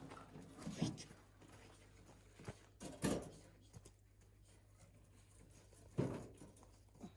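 A handful of separate sharp knocks and thuds, the loudest about six seconds in, over a faint steady low hum.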